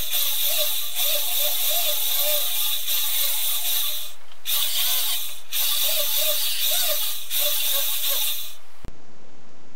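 Handheld rotary tool spinning a small abrasive wheel against a brass tube, a steady high-pitched grinding hiss that drops out briefly about four and five and a half seconds in. Near the end it cuts off abruptly into a duller steady hiss.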